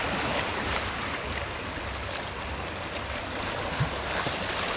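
Sea surf washing up the beach: a steady rushing of breaking waves. A short low thump sounds near the end.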